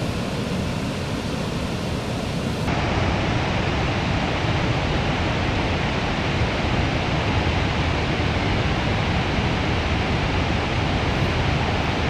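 Steady rush of Victoria Falls' falling water, an even, continuous noise; about three seconds in it turns a little louder and duller.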